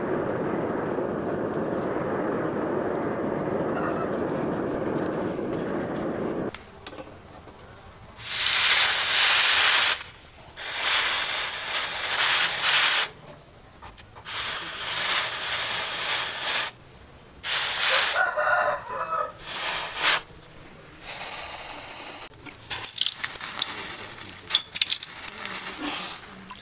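Steady rushing noise of the charcoal forge for the first six seconds, then the red-hot steel cleaver blade is quenched in a water trough: loud sizzling hiss in repeated bursts as the blade is dipped in and out. A rooster crows briefly about two-thirds of the way through, and water splashes over the blade near the end.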